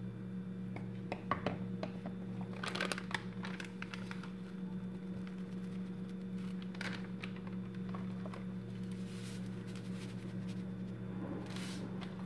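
A plastic-gloved hand sprinkling ground spices over raw chicken in a plastic bowl: plastic crinkling and rustling with scattered clicks, loudest in the first few seconds and again midway, and a short hiss near the end, over a steady low hum.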